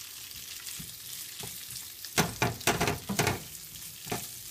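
Boiled potato pieces sizzling steadily in hot oil in a pan. About two seconds in, a quick run of loud scrapes and knocks as a spatula stirs them against the pan, with one more knock near the end.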